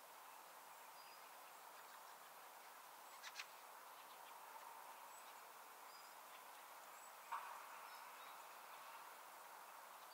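Near silence: faint open-countryside ambience, a soft steady hiss with a few brief, high bird chirps scattered through it. A couple of small clicks come about three seconds in, and a short, slightly louder sound about seven seconds in.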